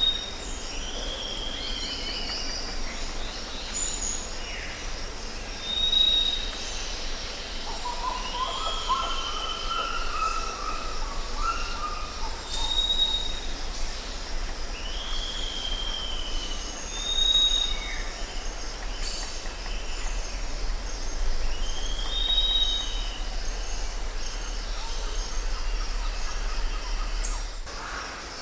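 Jungle ambience: several birds calling, one repeating a short high whistle every four to five seconds, others giving falling calls and a rising run of notes, over a steady high insect buzz. A low rumble underneath drops out near the end.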